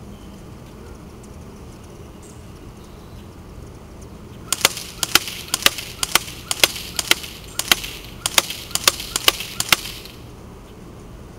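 Classic Army MP5A2 airsoft electric gun firing a string of single shots, sharp cracks about two a second, starting about four and a half seconds in and ending about ten seconds in.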